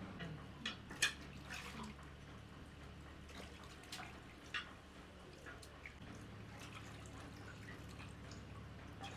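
Faint water splashing and dripping as whole raw chickens are washed by hand in a steel pot, in scattered small splashes and drips.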